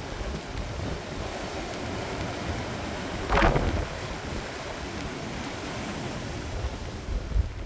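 Heavy storm surf surging and breaking over rocks, with wind buffeting the microphone; one wave crashes louder about three and a half seconds in.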